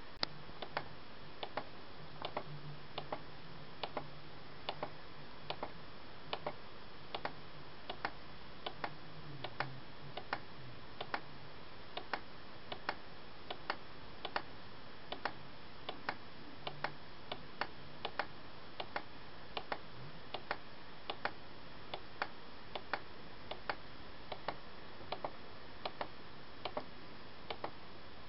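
A steady run of light, even ticks, a little more than one a second with some in close pairs, over a faint low hum.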